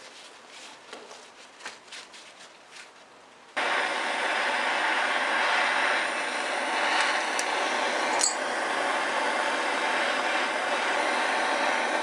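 Handheld butane torch lighting about three and a half seconds in, then burning with a steady hiss as it heats small steel screws for quenching in motor oil; one sharp tick about eight seconds in. Before it, a few faint clicks of the parts being handled.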